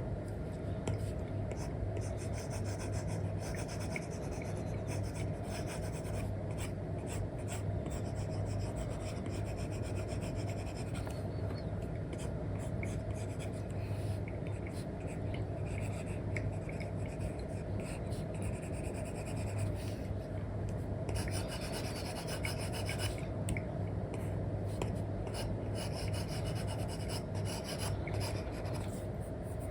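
Apple Pencil 2 with an Elecom nib scratching and rubbing across a paper-like film on an iPad screen: many short, quick strokes in a continuous run, over a steady low hum.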